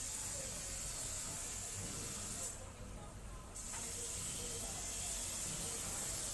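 Water from a hose spraying onto a wooden cutting board and the fish on it, a steady hiss. It cuts out for about a second near the middle, then comes back.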